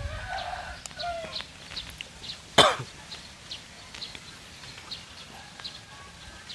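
A single short cough about two and a half seconds in, the loudest sound, over faint clicks of aluminum tripod legs being handled. Faint high chirps repeat about twice a second in the background.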